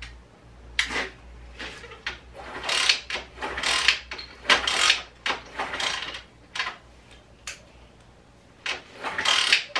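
Irregular clatter of hand work on a pit bike's engine: a dozen or so short metallic rattles, scrapes and clicks of parts and tools being handled, with short quiet gaps between.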